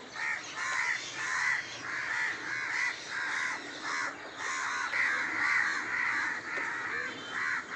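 Crows cawing: a steady run of harsh caws, about two a second and partly overlapping, that stops abruptly near the end.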